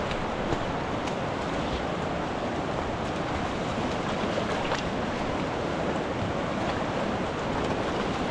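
Steady rushing water noise, even and unbroken, with a few faint ticks scattered through it.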